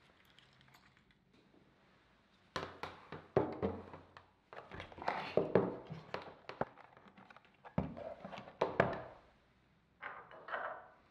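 Handling noise from setting up a plastic desk-phone base: knocks and clicks as the unit, its cord and a power adapter are moved and plugged in on a wooden table, with some rustling. It starts after a couple of quiet seconds, with a few more clicks near the end.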